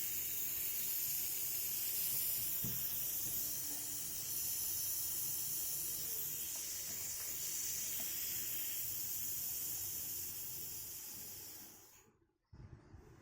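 Compressed air hissing steadily out of a Leyland bus gear shifter under pressure, leaking past a second-hand gasket that was over-tightened in the past. The hiss cuts off suddenly about twelve seconds in, and a short low sound follows.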